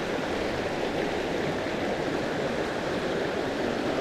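Small mountain creek rushing over rocks, a steady wash of water.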